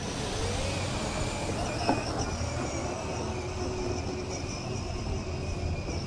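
Battery-powered ride-on toy Jeep's electric drive motors whining steadily as it drives away, on a battery that is not fully charged, with a single knock about two seconds in.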